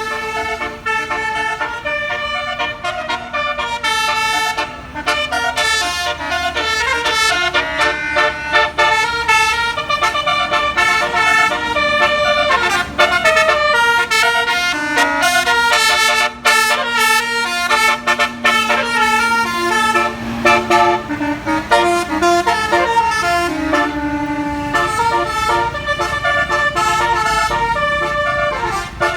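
Bus 'telolet basuri' musical air horns playing a long, fast melody: several horn tones sound together and jump from note to note in quick succession, with a low drone underneath at times.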